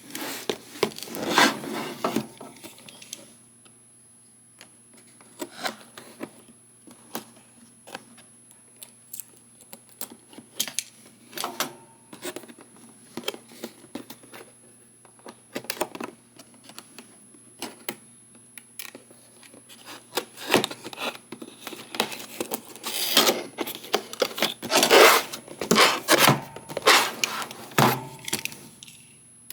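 Cardboard box and packaging being handled while a figurine is unpacked: irregular scraping, rustling and clicking. The handling is busiest in the first few seconds and again through the last third.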